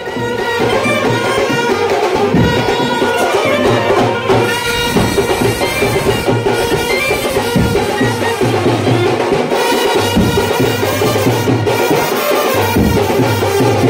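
Brass band music: brass instruments playing over loud, steady drumming.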